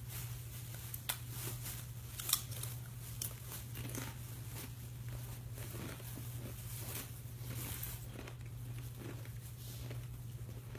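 Cloth rustling with scattered light clicks as a cat digs and pulls at a pile of clothes, over a steady low hum.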